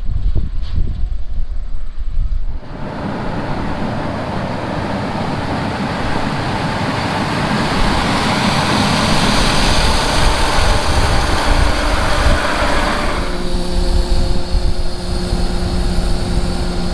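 John Deere S670 combine harvesting corn up close: a loud, dense rush of the machine working through the standing stalks. Over the last few seconds it gives way to a steady engine drone.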